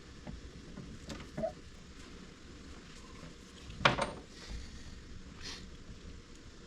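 Small metal tools and wiring parts being handled: a few light clicks, then one sharp metallic tap about four seconds in and a fainter one a little later.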